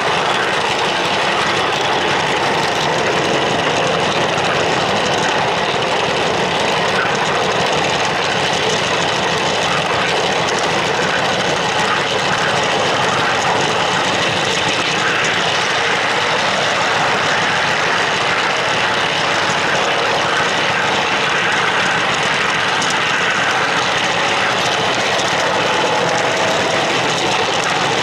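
O scale model train running along the track, heard from a camera riding on the train: a steady rolling rumble and clatter of the wheels on the rails, with the drive running.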